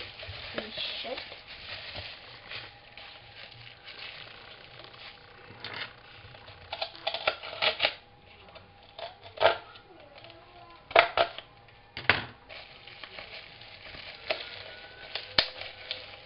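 Plastic packaging crinkling and rustling as it is pulled off a toy by hand, with a run of sharp crackles and snaps, the loudest few in the middle.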